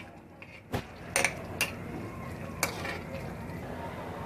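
Metal ladle stirring thick curry in a kadhai, knocking against the pan with about four sharp clinks in the first three seconds.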